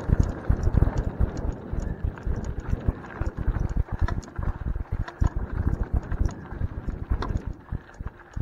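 Bicycle jolting over a bumpy dirt-and-gravel trail: a constant run of irregular knocks, thumps and rattles from the bike and the tyre rumble, with sharper clicks now and then.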